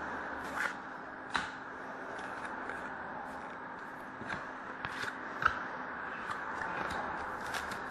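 Trading cards being handled: light clicks and short scrapes, one or two a second, as cards are slid and flipped, over a steady room hiss.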